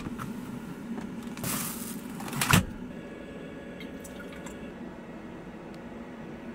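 A click as a portable fridge lid is handled, a short rustle, then a sharp knock about two and a half seconds in, the loudest sound. After it, almond creamer is poured from a bottle into a steel tumbler in a steady, soft trickle.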